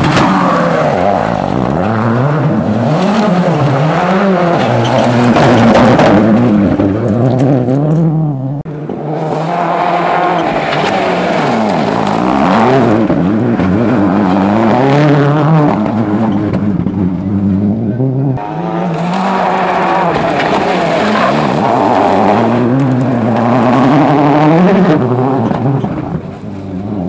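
Ford Focus RS WRC rally cars driven hard past on a gravel stage, one pass after another. The turbocharged engines rev up and down in quick swings through gear changes, over a hiss of tyres scrabbling on gravel. The sound breaks off abruptly twice, about eight and a half and eighteen seconds in.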